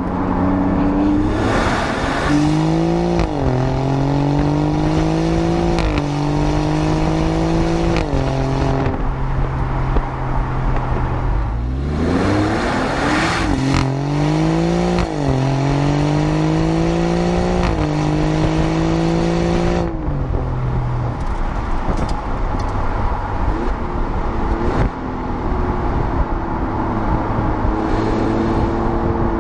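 A 2020 Alfa Romeo Giulia Quadrifoglio's twin-turbo V6 accelerating hard through the gears in two runs, its note climbing and then dropping sharply at each upshift. In the last several seconds it settles into a steadier drone.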